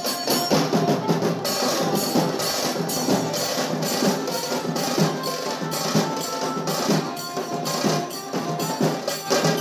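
Music led by rapid, dense drumming with sharp, clicking wood-block-like strikes.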